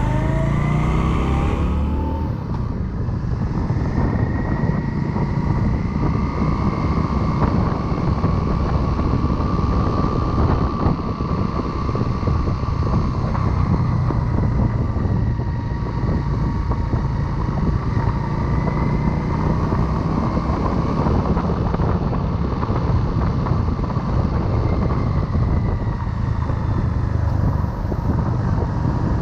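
Motorcycle engine revving up through a gear for about two seconds, then running at a steady cruising speed, heard from the rider's chest-mounted camera with heavy wind rumble.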